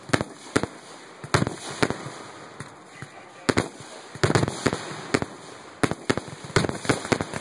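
Aerial fireworks shells bursting in an irregular string of sharp booms, with quick clusters of reports about four seconds in and again near the end, over a steady crackle.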